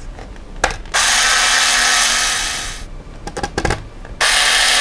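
Cordless electric screwdriver running in two bursts, driving screws into the plastic rear gearbox housing of an RC car chassis. The first run lasts about two seconds and tails off, a few light clicks of the bit and parts come between, and the second run starts near the end.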